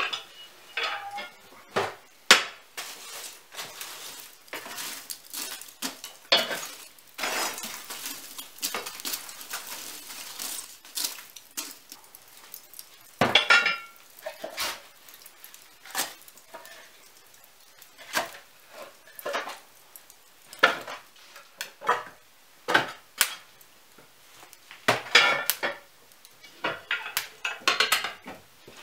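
Split firewood being knocked and stacked into a brick wood stove's iron firebox: a long, irregular series of wooden clunks and metallic clinks against the stove's iron fittings. A quick cluster of clanks near the end as the cast-iron firebox door is pushed shut.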